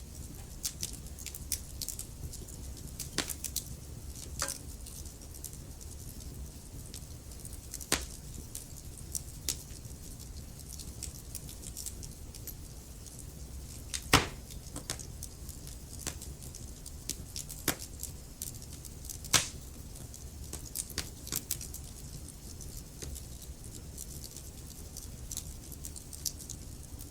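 Wood fire burning with a low steady rumble and irregular crackles and pops, two sharper, louder pops about fourteen and nineteen seconds in.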